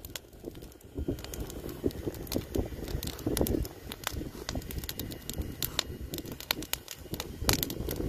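Wood fire crackling and popping, with irregular sharp pops scattered through, over a steady low rumble.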